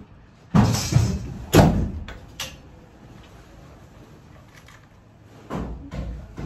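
Sheet-metal ductwork being handled and shifted in a wall cavity: two short scraping, rattling bursts about a second apart, then a sharp click. A low rumble starts near the end.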